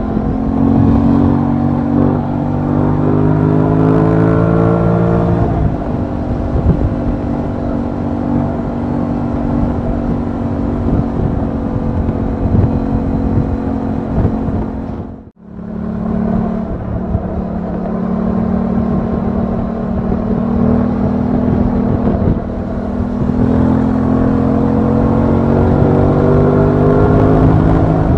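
Aprilia Tuono 660's parallel-twin engine running as the motorcycle rides along, rising in pitch under acceleration over the first five seconds and again in the last several seconds. The sound dips out for a moment about halfway through.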